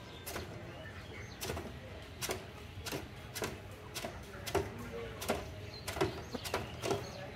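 A slaughtered chicken thrashing head-down in a metal killing cone, its wings beating against the metal in about eleven irregular knocks, one or two a second. These are the bird's reflexive death flaps after the cut.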